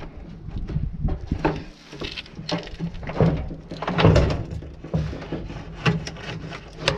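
Irregular clunks, knocks and scrapes of hands and tools working at a washing machine's heating element to pull it out.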